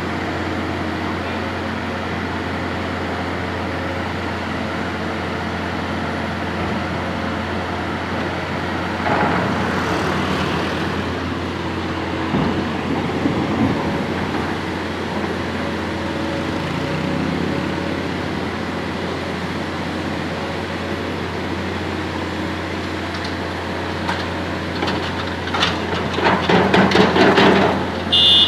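Bauer GB 50 diaphragm-wall grab rig's diesel engine running steadily, with a louder stretch about a third of the way in and a burst of knocking and clattering near the end.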